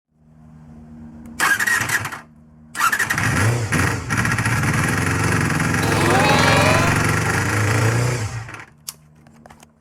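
Honda MC23 Jade's MC14E 250 cc inline-four engine running at a low, steady idle. It is revved briefly about a second and a half in, then revved again for about five seconds with the pitch rising, before dropping back to idle near the end. The revving tests the engine on its freshly cleaned and adjusted carburettors.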